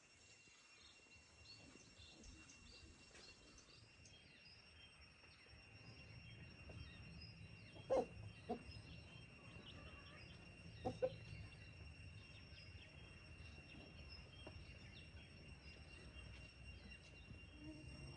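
Quiet farmyard ambience: faint small-bird chirps over a steady high tone, with a few short chicken clucks, two about eight seconds in and one near eleven seconds.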